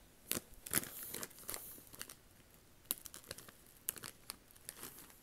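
A potato chip bag being handled close to the microphone, its crinkly packaging crackling in irregular bursts.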